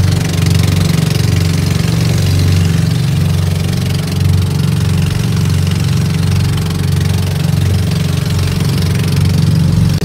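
Engine of a motorized outrigger boat (bangka) running steadily under way with a fast, even chug, over a rush of wind and water.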